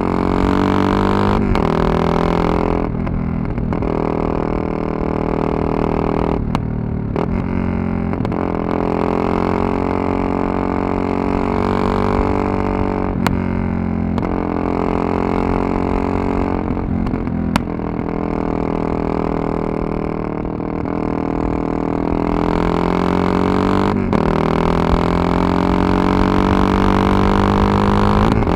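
Yamaha MT-03's 660cc single-cylinder engine running under way, its droning note breaking off and picking up again at a new pitch several times as the throttle closes and gears change. Two sharp clicks come in the middle.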